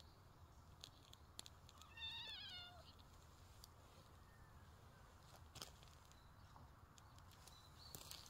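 A cat meowing once, about two seconds in: a short, wavering meow that dips slightly in pitch. A few faint clicks are scattered around it.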